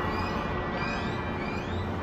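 San Fernando Cathedral's church bells, their ringing tones dying away, with birds chirping in short sweeping calls and a low traffic rumble underneath.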